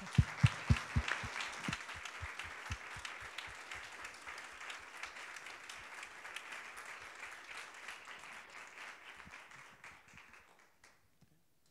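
Audience applauding, with a few loud close claps at first; the applause thins out and dies away about ten seconds in.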